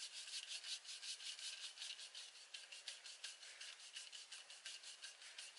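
Homemade wooden wrist roller being twisted hand over hand, a faint, quick, even rubbing of about five strokes a second as the stick turns in the hands and winds up the string.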